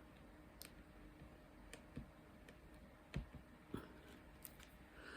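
Faint, scattered light clicks and taps, about six irregularly spaced: a diamond-painting pen picking up drills and pressing them onto the canvas.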